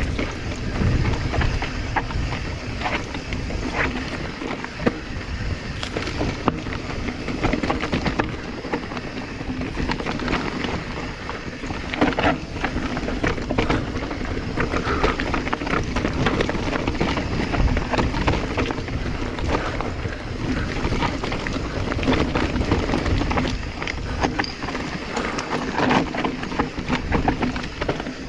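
Specialized Stumpjumper EVO mountain bike riding downhill over loose dirt and rocks, with tyres crunching and frequent clicks and knocks of the bike rattling. Wind buffets the chest-mounted camera's microphone.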